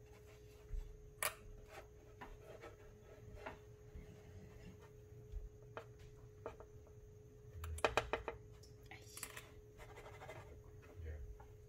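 A spatula scraping and tapping against a nonstick frying pan as it works under a half-cooked pancake, with a quick cluster of clicks about eight seconds in, over a faint steady hum.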